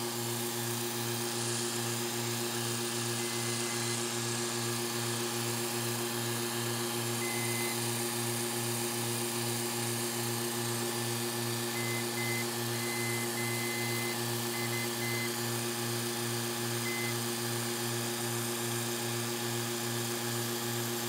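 Rebuilt Gast rotary vane pump and its electric motor running steadily: a constant hum with a regular pulsing in its lowest tone. The motor is drawing current within its nameplate rating and is in good shape.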